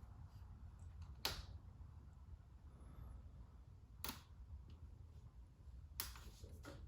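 Four short, sharp clicks at uneven intervals over a quiet low hum: switches on the e-bike light kit's handlebar controls being pressed as the lights are worked.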